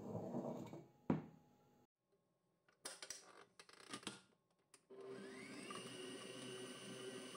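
Kenwood Major Titanium stand mixer being set up and started: handling noise and one sharp knock about a second in, a few clicks, then the motor starts about five seconds in, its whine rising briefly and levelling off into a steady run as the balloon whisk beats the cream and mascarpone.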